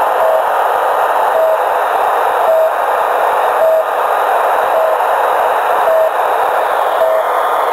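Shortwave radio receiving the Russian military station "The Pip" (S30) on 3756 kHz with a strong signal: short, steady beeps about once a second over a constant band of static hiss.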